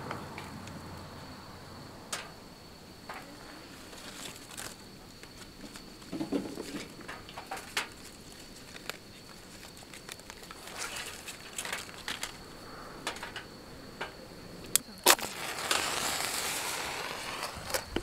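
Scattered clicks and knocks of firewood and camp gear being handled, under a steady high trill of autumn insects such as crickets. About fifteen seconds in comes a sharp strike and then a hiss lasting a second or two: a match being struck and flaring to light kindling in a metal fire stand.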